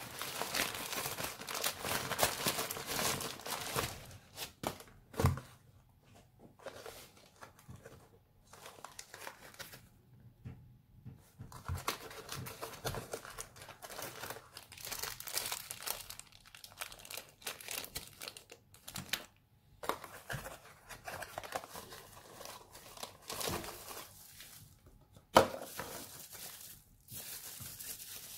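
Plastic packaging crinkling and rustling as it is handled, in irregular bursts with short pauses, and a single sharp knock about 25 seconds in.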